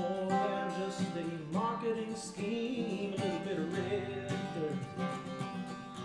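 Strummed acoustic guitar playing an instrumental passage, with a bending melody line coming in over it about a second and a half in.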